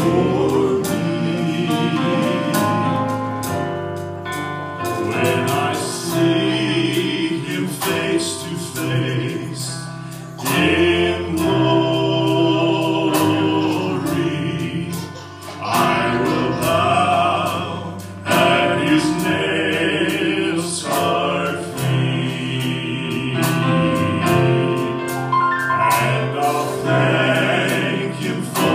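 Male gospel vocal group singing together, backed live by piano, acoustic guitar and drums and amplified through a PA.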